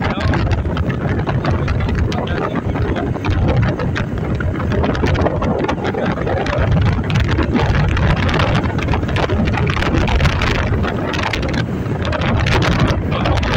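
Wind rumbling steadily on the microphone, over street and traffic noise.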